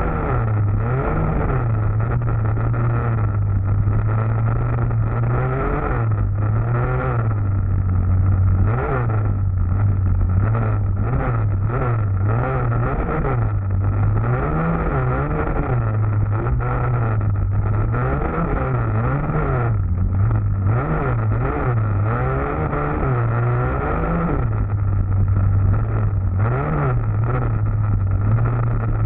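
Youth dirt bike's engine heard up close from on board, revving up and dropping back over and over as the rider works the throttle along a twisting trail.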